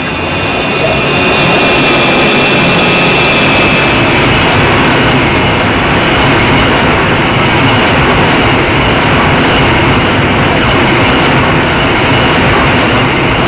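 Loud, steady vehicle roar, with a thin high whine over the first four seconds or so.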